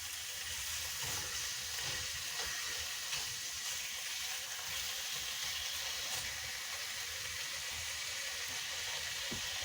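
Bacon frying in a pan, a steady sizzle.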